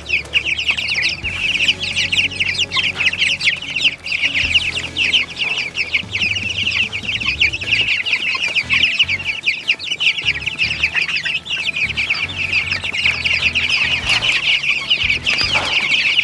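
A flock of young broiler chicks peeping: many high, short calls overlapping in a continuous chatter.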